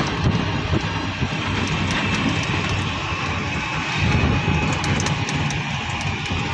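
Steady engine rumble and road noise of a moving vehicle, heard from inside its cab.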